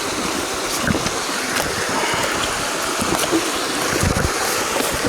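Steady rush of a mountain creek's flowing water, with a few faint knocks.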